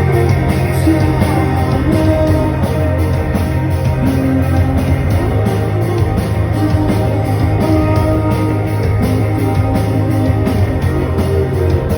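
A band playing a rock song live, instrumental with no clear singing, with a strong steady bass.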